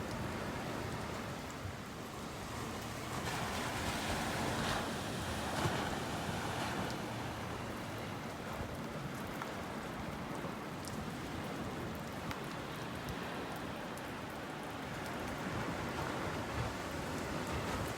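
Steady rain falling, with scattered light drop ticks and a faint wash of surf behind it.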